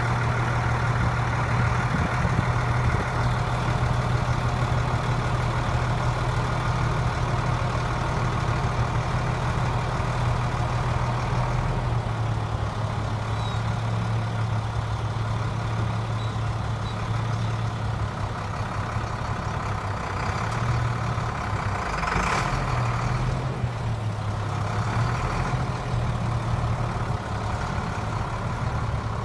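International 4900's DT turbo-diesel inline-six engine idling steadily, a constant low hum.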